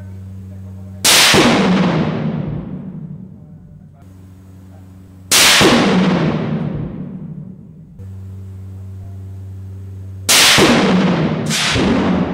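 Four 5.56mm rifle shots from a clamped-down test barrel. Each is a sharp crack with a long echoing decay down an indoor range. The first three come about four to five seconds apart and the last two about a second apart, with a steady low hum between them.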